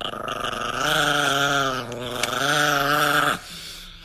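Chihuahua growling: two long, steady growls, one straight after the other, stopping a little after three seconds in.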